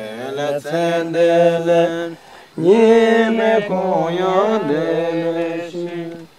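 Male chanting of a Buddhist mantra in long, held notes, with a short pause for breath about two seconds in.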